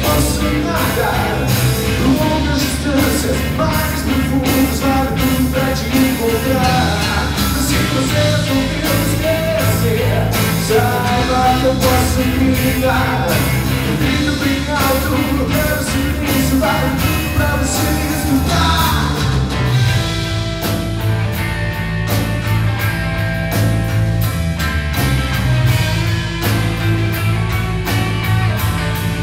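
Rock band playing live: electric guitars, electric bass and drums. A melody line wanders over the band for roughly the first two-thirds, then the playing turns steadier and denser, with fast cymbal strokes.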